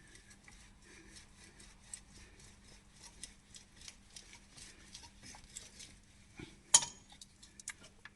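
Light metallic clicks and clinks of tools and metal parts being handled, with one sharper, louder clink about seven seconds in.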